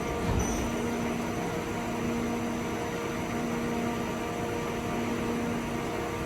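Steady machine hum with several constant tones over an even rushing noise, typical of a powered-up CNC turning centre's pumps and cooling fans, here a 2005 Mori Seiki ZT2500Y. A brief low thump comes just after the start.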